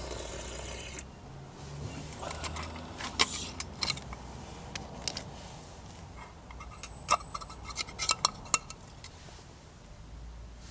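Metal cookware and utensils clinking and tapping: scattered sharp strikes, a few with a short ringing tone, bunched together a few seconds in and again later on. A brief hiss opens the sound.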